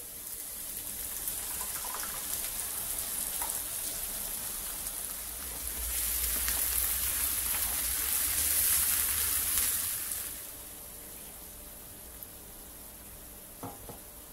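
Minced meat and onions sizzling in a hot wok, with a few light knocks of the stirring spoon. The sizzle grows much louder for about four seconds in the middle, when tomato sauce goes into the pan, then settles back.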